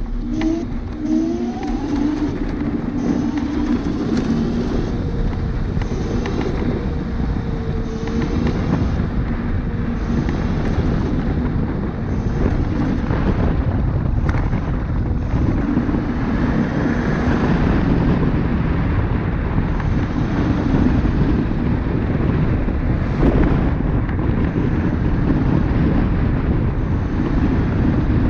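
Wind noise buffeting the microphone over the rumble of a Dualtron Thunder electric scooter's tyres rolling on rough asphalt at riding speed.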